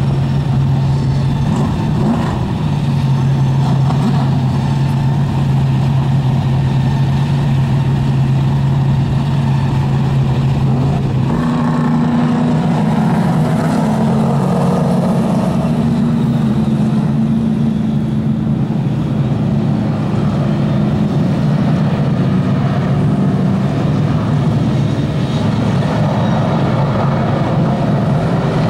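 Vintage modified race cars' engines running at speed around a short oval, a loud steady drone. About eleven seconds in, the engine pitch steps up.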